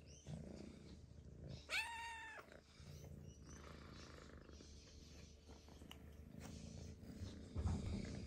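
Ragdoll kitten meowing once, a short high arched call about two seconds in, with faint low purring at times.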